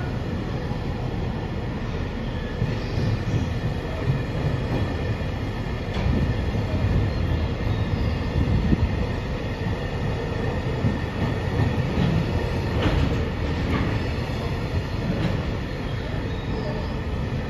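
Container flat wagons of a freight train rolling past without stopping: a steady low rumble of steel wheels on rail, with a few faint clicks over the rail joints.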